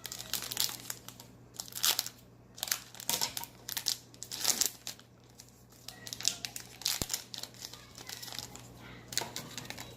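Crinkling and tearing of Panini football trading card pack wrappers being opened by hand, in irregular crackly bursts.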